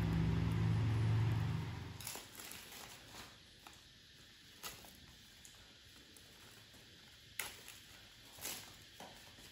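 Dry banana-leaf wrappers of rice cakes crinkling and rustling as they are pulled apart by hand, with a few short sharp crackles. Before this, a steady low hum lasts about two seconds and then cuts off.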